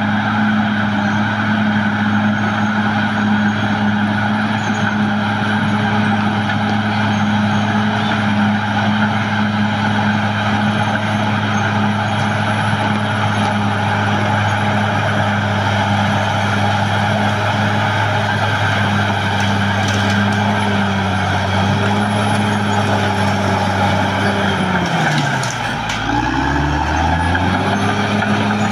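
Caterpillar D6R XL bulldozer's diesel engine running steadily at working revs, with a steady high whine above it. Near the end the engine pitch drops sharply and comes back up.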